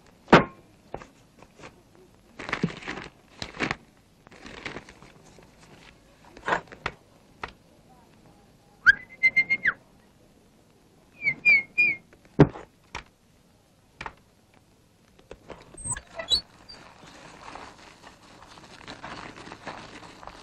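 Sparse cartoon sound effects: scattered clicks and knocks, a whistled note that rises and holds about a third of the way in, then three quick whistled chirps. Near the end come a few rising glides and a soft hiss.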